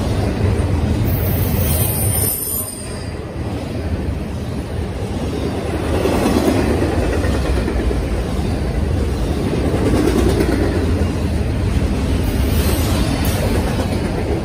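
Double-stack intermodal freight cars rolling past on the rails with a steady, loud rumble of wheels and cars. A high-pitched wheel squeal rises about a second in and again near the end.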